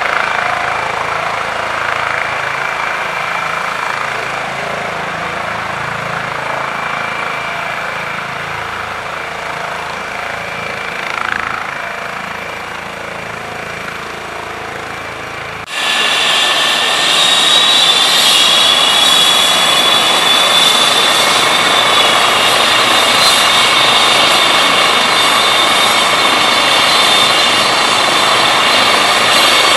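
Eurocopter EC135 helicopter turbine and rotor noise: a police EC135 settling onto the grass and running on the ground, slowly getting quieter. About sixteen seconds in, the sound jumps abruptly to a louder EC135 trauma helicopter running on the ground with rotors turning, with a steady high turbine whine.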